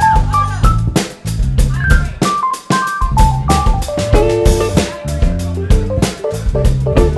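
Live band music: a drum kit beating steadily over bass, with a keyboard playing a melody of short stepping notes.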